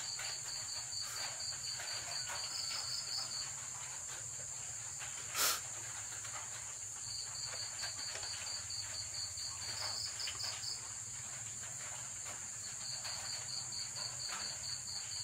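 Crickets chirping in runs of quick, evenly spaced pulses that stop and start again, over a steady high-pitched insect trill. A single sharp click about five seconds in.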